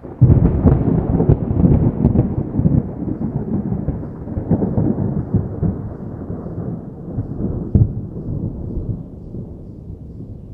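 A peal of distant thunder: it breaks suddenly with crackling, rumbles low with a couple of further swells, and slowly fades away.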